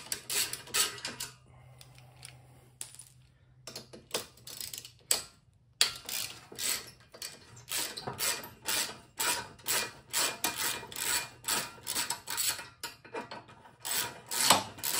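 Hand socket ratchet clicking in quick repeated strokes as it loosens the muffler bolts on a Kohler mower engine. It pauses briefly near the start, then keeps up a steady run of clicks.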